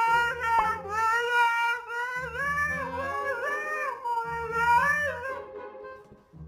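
A dog's long, drawn-out howling vocalization that wavers and slides up and down in pitch, stopping about five seconds in.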